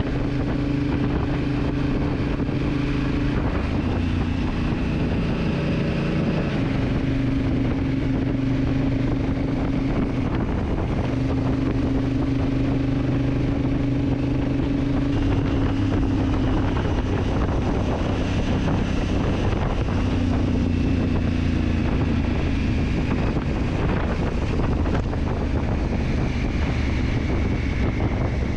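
Honda CRF1000L Africa Twin's parallel-twin engine running while the motorcycle is ridden, its note stepping up and down several times as engine speed changes, with wind noise on the microphone.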